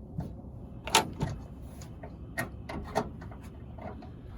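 Pliers clicking and clanking against the small metal nuts and bracket of a Ford F-150 starter relay as they are worked loose: a handful of sharp separate metallic clicks, the loudest about a second in.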